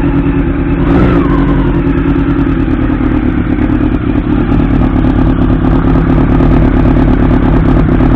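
1989 Honda CB-1's 400cc inline-four engine running steadily, with a quick throttle blip about a second in. The throttle is sluggish, which the owner suspects comes from dirty carburettors or carburettors out of sync.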